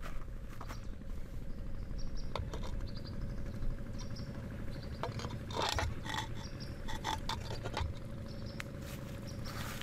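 A metal wok being set and shifted on stones, giving a few short clanks and knocks about halfway through and one more near the end. Behind it, a steady low outdoor hum and faint high chirps from small animals.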